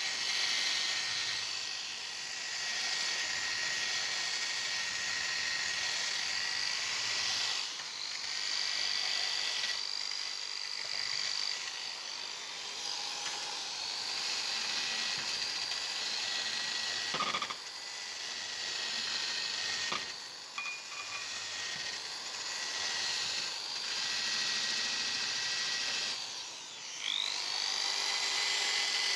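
Electric drill spinning an abrasive wheel against a rusty steel adjustable wrench, grinding off rust: a steady high motor whine with a scraping hiss. It dips briefly several times as the wheel is pressed in or lifted, and rises in pitch near the end as it spins back up.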